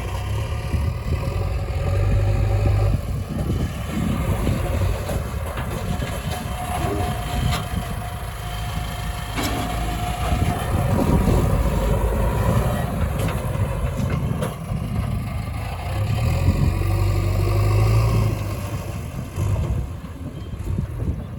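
Heavy diesel engines running at a worksite, with a low rumble that swells under load twice, near the start and late on. A few sharp clanks sound in between.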